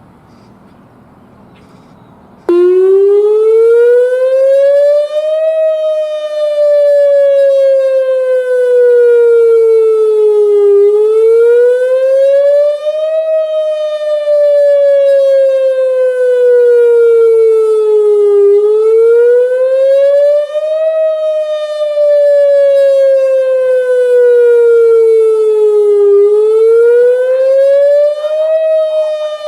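Whelen WPS-2905 electronic outdoor warning siren switching on abruptly about two and a half seconds in and sounding its wail tone. It is a loud, steady tone that glides up over about three seconds and down over about five, over and over.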